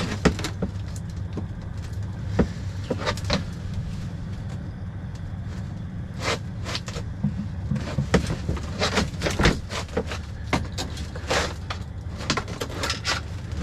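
Scattered sharp clicks, taps and rustles of fishing tackle being handled while re-rigging a line, thickest in the second half, over a steady low hum.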